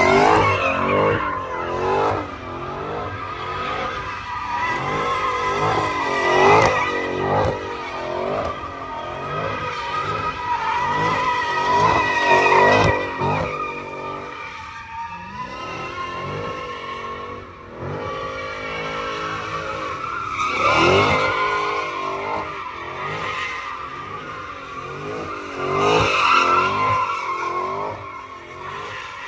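A car doing a burnout or donuts: the engine revs up and down about once a second, over continuous tire squeal that swells several times.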